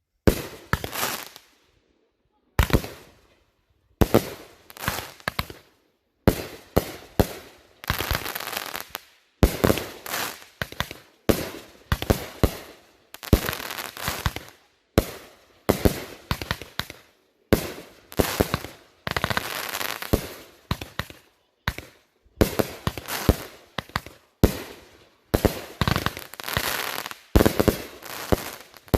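Consumer fireworks going off in quick succession: sharp bangs, one to two a second, each trailing into crackle, with a few short pauses in the first few seconds.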